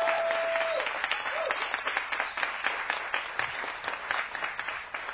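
Audience applause, many hands clapping, slowly dying down, with a brief held high tone over it in the first second.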